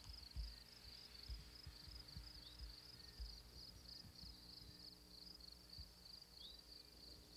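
Insects chirping faintly in a steady, high-pitched, evenly pulsing trill. Scattered low, dull thumps sit underneath.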